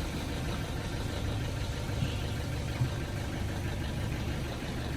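Car engine idling steadily, a low even rumble with a few faint ticks.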